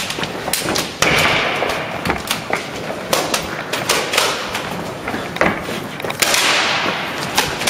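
Irregular sharp clicks and knocks from a three-round-burst airsoft shotgun firing at targets, BBs striking them, with two short rushing noises, about a second in and about six seconds in.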